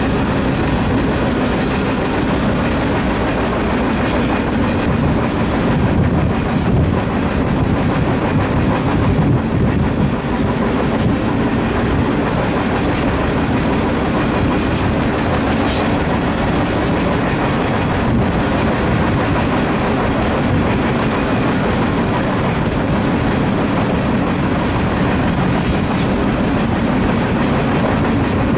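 Freight train rolling along at speed, heard from aboard one of its cars: a steady rumble of steel wheels on rail with occasional faint clicks.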